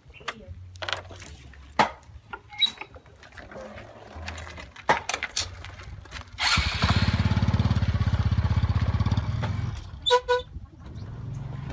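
Scattered clicks and knocks, then a small engine running with a fast, even pulse for about three seconds from just past the middle before cutting off.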